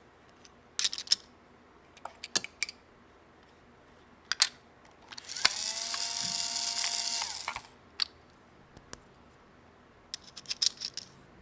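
Small plastic toy parts clicking and tapping as they are handled, in scattered groups of sharp ticks. About five seconds in, a small motor whirs steadily for about two seconds.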